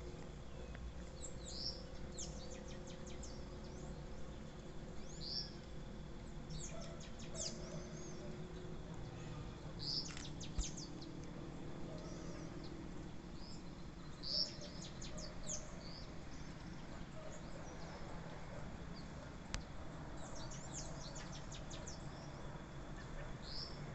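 Birds calling outdoors: short high chirps and twittering notes repeating every few seconds, over a steady low background rumble.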